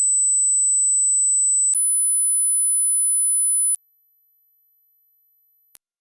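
Electronically generated pure sine tones from a high-frequency hearing test, very high-pitched, each held steady for about two seconds and then jumping straight to a higher pitch, stepping up three times.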